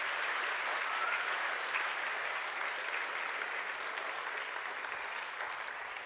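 A large audience applauding steadily.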